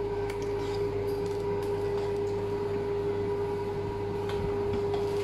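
Steady mechanical hum with one strong constant tone, with faint soft scrapes and ticks of a spatula folding butter into batter in a stainless steel bowl.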